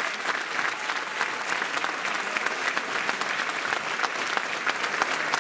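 Audience applauding steadily: many hands clapping at once, with single sharp claps standing out from the mass.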